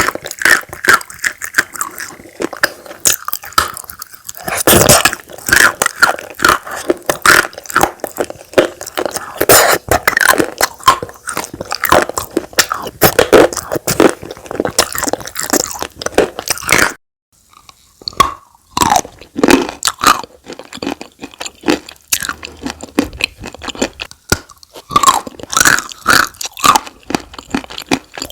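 Close-miked chewing of chalk with Turkestan clay paste: dense crunching with many sharp bites and crackles. The crunching stops briefly a little past halfway, then carries on.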